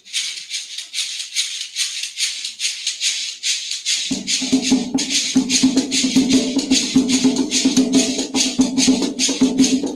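Afro-Brazilian ritual percussion starting up: a shaker plays a fast, even rhythm alone, and hand drums join about four seconds in.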